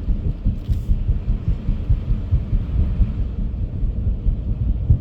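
Low, uneven rumble of a car driving, with road and engine noise heard from inside the cabin.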